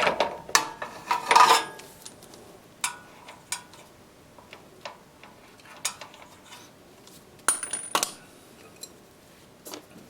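Steel spanners clinking and tapping against the nuts and axle of a motorcycle's rear wheel during a chain adjustment, in scattered single knocks with a short cluster near the end.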